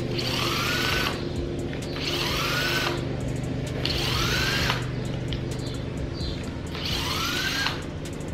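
Cordless drill with a socket spinning out the intake manifold bolts on a GM 5.3 V8. Four short runs of about a second each, the motor's pitch rising as it spins up before stopping.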